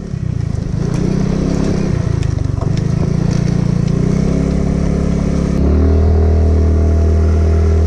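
Suzuki Skydrive Sport scooter's single-cylinder engine pulling away and ridden at low speed, its pitch rising and falling, then settling into a steady, slightly louder note about five and a half seconds in.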